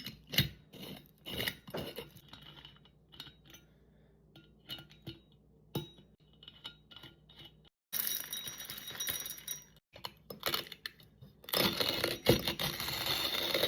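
Hand-crank coffee bean grinder mounted on a glass mason jar. It starts with scattered clinks and rattles of whole beans against glass and metal, then, after a cut about eight seconds in, a steady dry crunching as the handle is turned and the beans are ground.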